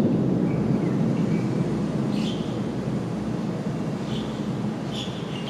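Low thunder rumble rolling on and slowly dying away, with a few faint high chirps over it.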